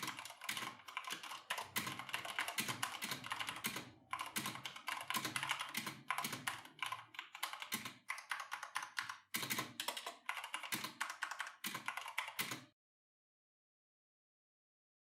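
Mechanical keyboard switches being typed on quickly, a dense run of key clicks with short breaks about 4 and 9 seconds in, stopping abruptly about 13 seconds in.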